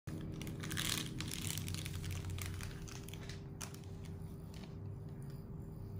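A clear plastic sterile pouch crinkling as it is torn open and handled. There is a run of rustles and crinkles over the first three and a half seconds, then it quietens, over a steady low hum.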